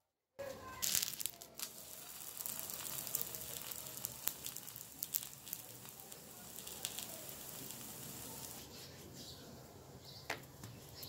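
Stuffed paratha frying in ghee on a hot tawa over medium heat: a steady sizzle with scattered crackles and pops, starting abruptly about half a second in.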